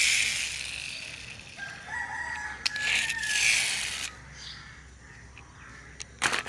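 A rooster crows once, about a second and a half in, a single held call lasting about a second. Bursts of hissing, rustling noise come before and after it, and two short clicks come near the end.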